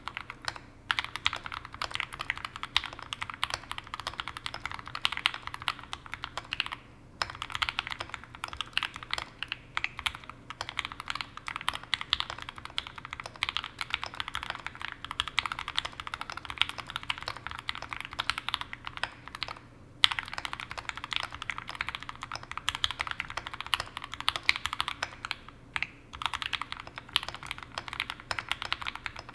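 Continuous typing on a Sneakbox AVA custom mechanical keyboard with Tangerine v2 linear switches (PE stems), an aluminium plate and GMK keycaps, dampened with a PE sheet and shelf liner. The keys give a soft, rapid stream of clacks, broken by a few brief pauses.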